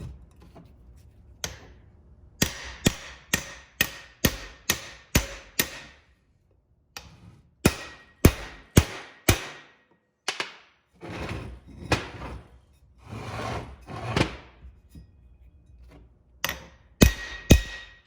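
A hammer tapping on a homemade tube to drive a seal onto a CV joint, in runs of quick, sharp taps about two a second, some ringing briefly. Around the middle there are a few longer, duller noises between the taps.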